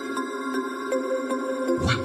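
Background music: calm ambient electronic music with steady held tones and light, regular clicks. Near the end it breaks into a louder new passage with a sweeping change in pitch.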